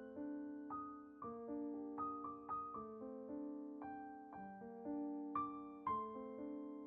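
Slow, gentle solo piano music: single notes and chords struck one after another, each ringing and fading.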